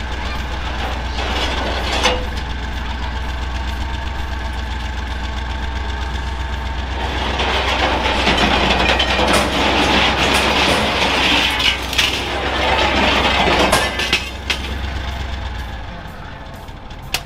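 1986 Ford F-800 dump truck's engine running steadily with its bed raised. From about seven seconds in, scrap metal scrapes and clatters out of the tipped bed for several seconds, and the engine's low hum stops near the end.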